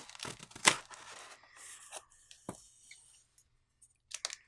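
Hands working at a cardboard shipping box wrapped in plastic film: rubbing and scraping of cardboard and plastic, with a sharp click a little under a second in and a single dull knock about halfway through.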